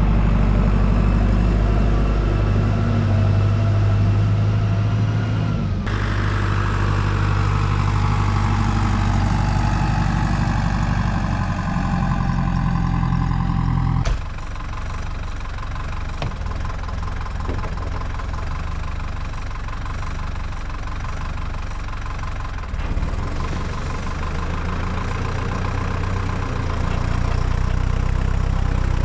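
Tractor engine running steadily while hauling manure, its low hum changing abruptly about six and fourteen seconds in.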